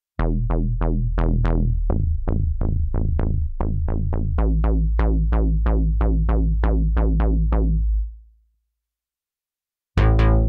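Cherry Audio Octave Cat software synthesizer, a model of the 1976 Octave CAT, playing its 'Acid Squares' bass preset: a repeating pattern of short plucked bass notes, about three a second, each opening bright and quickly closing down, with the bass note changing twice. The pattern fades out about eight seconds in, and after a short silence a brighter bass preset starts near the end.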